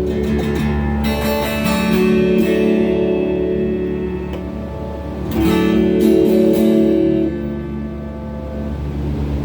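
Electric guitar (Donner strat-style HSS) played through a Crate GX30M amp, strumming chords and letting them ring. New chords come in about one and two seconds in, and a louder one about halfway through.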